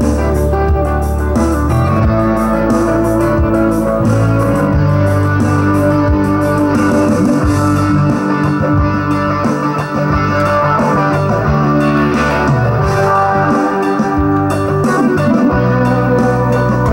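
Guitar-led music played through a Panasonic SA-CH11 bookshelf stereo and its original bookshelf speakers, fed in through the auxiliary input. The speakers sound very good.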